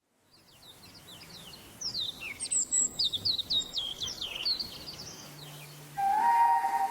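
Songbirds chirping in a run of quick, sharply falling chirps, fading in from silence. About six seconds in a steady ringing musical tone comes in.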